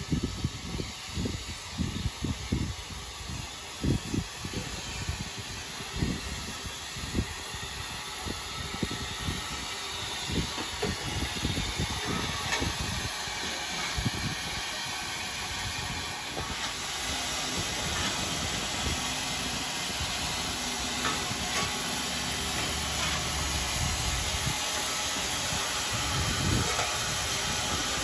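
Steam locomotive standing and hissing steam. The hiss becomes steadier and louder a little past halfway, with irregular low thuds in the first half.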